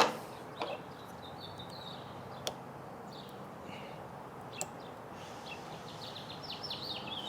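Birds chirping in short runs over steady outdoor noise. There is a sharp click right at the start and a few faint clicks after it, from tail-light bulbs and plastic sockets being handled and twisted in.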